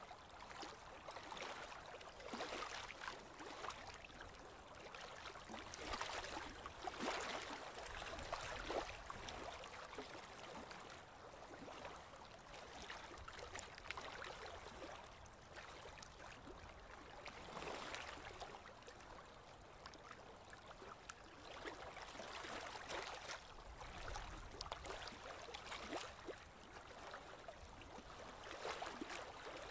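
Faint, irregular lapping and splashing of water against a small boat's hull as it moves slowly over calm water, with a weak low rumble underneath.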